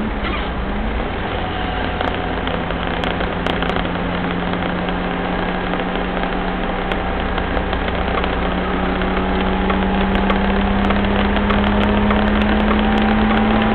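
1983 Mitsubishi Pajero's four-cylinder turbo-diesel engine running under way, heard from inside the cab. Its note dips briefly at the start, then climbs slowly and steadily as it pulls, getting a little louder in the second half, with scattered light ticks over it.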